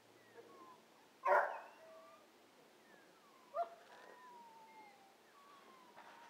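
A dog barks once sharply about a second in and again more briefly a little past halfway, with faint thin chirps and whistles in the background.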